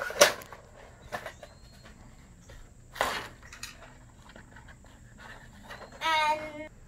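Doll packaging being handled: a few sharp rustles of plastic and cardboard, the loudest just after the start and another about three seconds in, with faint clicks between. Near the end comes a short, high-pitched squeal.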